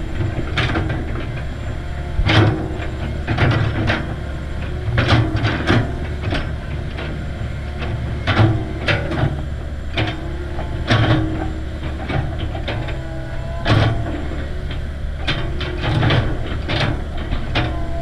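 Komatsu crawler excavator's diesel engine running with a steady low drone, with frequent irregular clanks and knocks as its bucket digs into the dirt.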